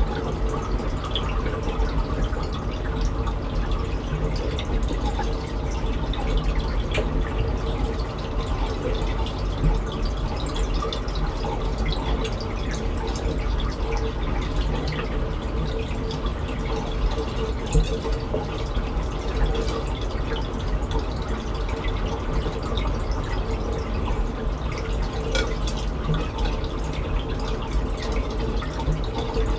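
Reef aquarium water trickling and dripping steadily, with fine bubbling ticks and a steady hum underneath.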